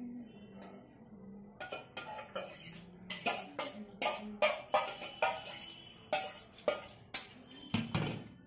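Metal serving spoon clinking and scraping against a stainless steel serving bowl as curry is ladled onto plates. The quick run of clinks starts about a second and a half in.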